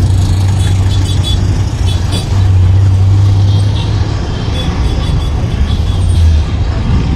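MSRTC bus's engine running with a low, steady drone heard from inside the cabin, growing louder for a second or so midway as the bus pulls ahead through traffic. Road and traffic noise, with faint short horn toots from surrounding vehicles.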